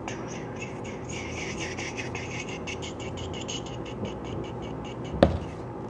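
A plastic cup-shaped container spinning and wobbling on a wooden tabletop, its rim rattling against the wood in quick, even taps several times a second, then one heavier thump a little past five seconds in.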